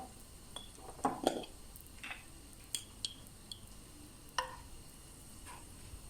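Kitchen utensils knocking and clinking against cookware: about eight sharp separate clinks, a couple of them ringing briefly, loudest around one second in and again a little after four seconds.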